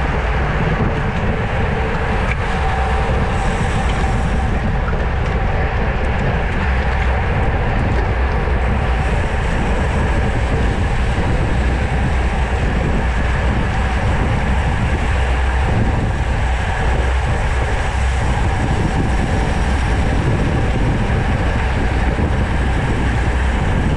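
Steady rush of wind over a bicycle-mounted action camera's microphone while riding at racing speed, with a heavy low rumble.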